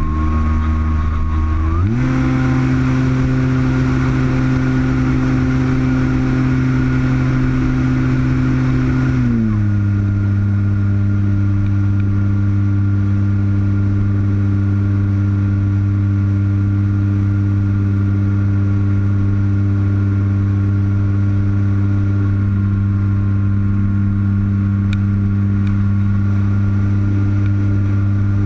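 Electric motor and propeller of an E-flite Apprentice RC trainer plane running steadily in flight, heard up close from an onboard camera. Its pitch steps up about two seconds in and drops back about nine seconds in, then holds steady.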